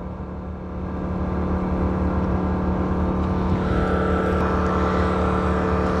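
Small 1250-watt portable generator running smoothly and steadily while powering a window air conditioner, a constant even engine hum without surging.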